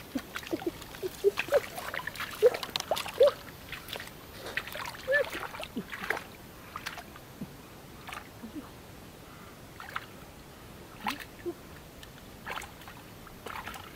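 Water splashing and sloshing with scattered small plops and drips, busier in the first half and sparser later.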